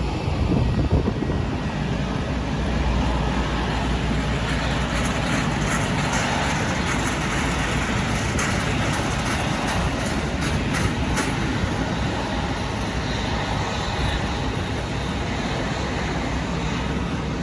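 Jet airliner engines running with a steady roar and a low rumble. A few faint high ticks come around the middle.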